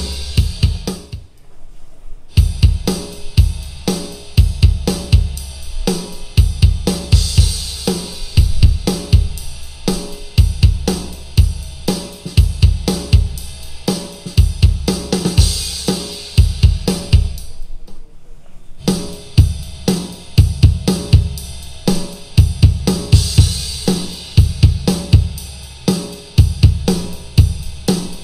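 A JBL PartyBox On-The-Go portable party speaker plays a drum-heavy 120 BPM 80s hard-rock backing track, heard in the room: a punchy kick drum with snare, hi-hat and cymbals. The music cuts out twice for about a second, about a second in and again around eighteen seconds, as the bass boost is stepped up to levels 1 and 2.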